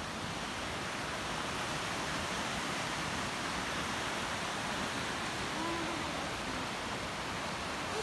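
A fast mountain river rushing over rocky rapids: a steady, even wash of white water.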